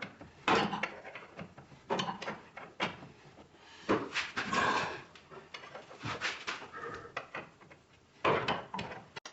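Irregular knocks, clunks and scraping of car body parts and hardware being handled during tailgate disassembly, with louder knocks about half a second in, around four to five seconds, and just after eight seconds.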